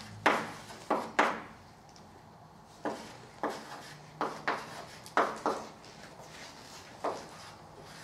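Chalk writing on a blackboard: an irregular string of sharp taps and short scrapes as letters are written, with brief pauses between groups of strokes.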